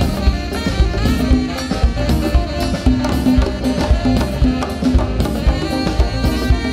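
Live band playing, with a tenor saxophone solo over a steady conga and drum-kit rhythm.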